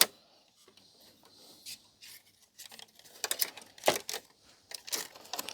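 Faint, scattered clicks and rustles of hands working at the plastic parts of an opened CD player, picking at a ribbon cable stuck down with tape; the clicks come more often from about three seconds in.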